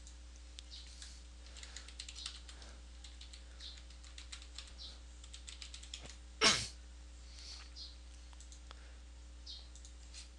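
Typing on a computer keyboard and mouse clicks, scattered and uneven, with one much louder short knock about six and a half seconds in.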